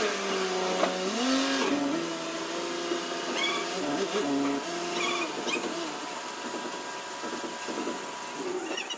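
Mercedes ML SUV engine running as the car is driven slowly up into a paint booth, its pitch rising briefly about a second and a half in, then settling to a steady hum.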